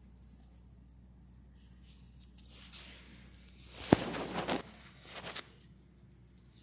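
Cigarette lighter being struck to light a cigar: a sharp click about four seconds in, then a brief rush of noise and a few more clicks, mixed with rustling of a nylon jacket.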